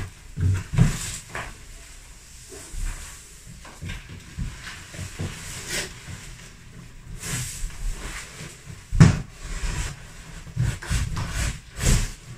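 Irregular knocks, bumps and rustling of objects being handled, with low thuds. The sharpest knock comes about nine seconds in.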